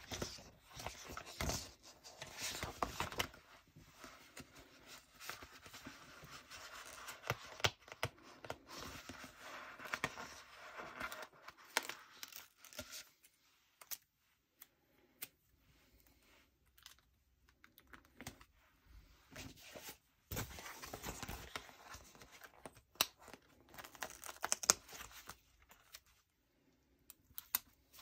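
Alphabet stickers being peeled off their backing sheet and pressed down, with paper rustling and crinkling and scattered light ticks and taps. A quieter pause comes about halfway through before the peeling and rustling resume.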